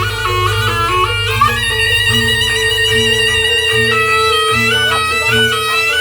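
Traditional Javanese barongan accompaniment music: a reedy wind instrument plays a wavering, sliding melody over a steady drone and a low note that repeats about every 0.8 seconds.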